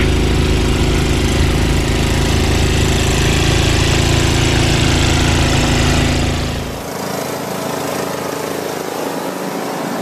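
Craftsman two-stage snowblower engine running steadily while blowing snow. About seven seconds in, the engine sound drops away and a quieter, different steady sound follows.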